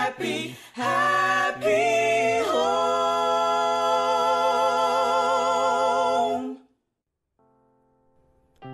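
Sung vocals finishing a song, the last word held as one long note for about four seconds before stopping about six and a half seconds in. After a brief silence, soft sustained music begins near the end.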